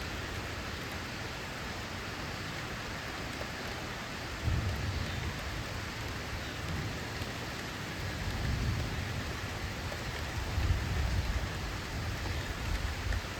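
Steady rain falling, with thunder rumbling in low rolls that start about four seconds in and build toward the end.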